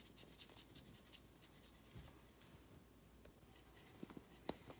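Near silence with faint, scattered light ticks and rubbing as dried parsley is sprinkled by hand, the ticks thicker at the start and again near the end.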